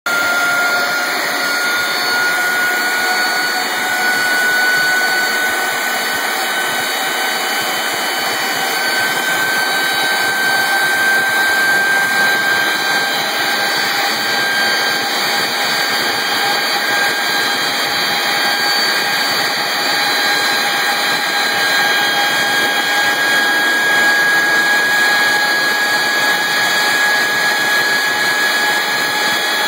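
Airbus A300's wing-mounted turbofan engine running on the ground, heard close to the intake: a steady rush of air with a whine whose pitch climbs slowly.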